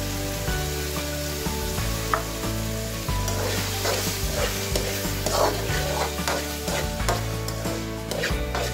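Onions and tomato puree sizzling in a frying pan while a steel spoon stirs and scrapes through them, the scrapes coming about every half second from a few seconds in. Background music with held notes plays underneath.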